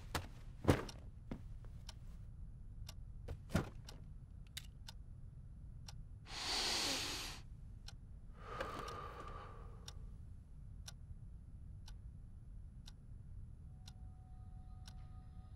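Slow ticking of a clock, about once a second, in a hushed room. About six seconds in comes a short, loud breathy rush of noise, and a softer one follows around nine seconds.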